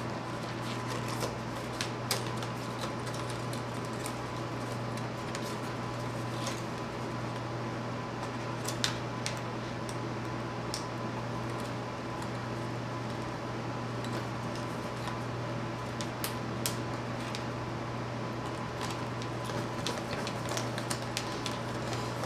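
A steady electric hum, like a running fan or small motor, with scattered light clicks and taps of handwork.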